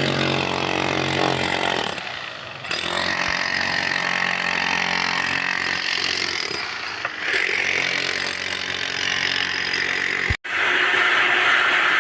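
Dump truck engine running hard with a heavy mechanical rumble and hiss. The sound changes abruptly twice, with a brief cutout near the end.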